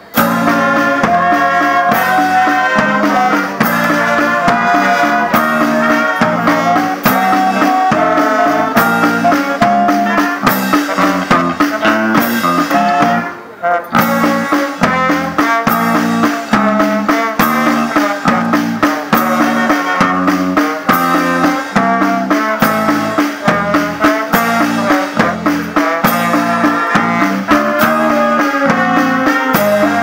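Wind band of saxophones, trumpets and trombone playing an upbeat tune over snare drum, bass drum and electric bass guitar with a steady beat. It comes in sharply at the start and breaks off for a moment about halfway through before carrying on.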